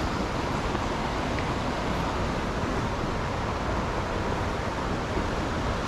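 Steady, even rushing noise with no distinct splashes or knocks.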